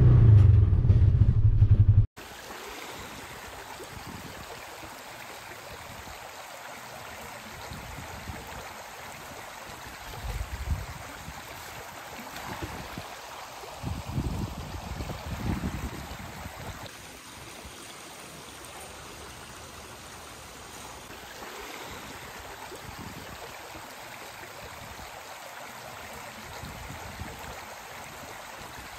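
A utility vehicle's engine runs for about two seconds and ends abruptly. After that comes the steady rushing of a flood-swollen, muddy creek, with a few low bumps about ten and fifteen seconds in.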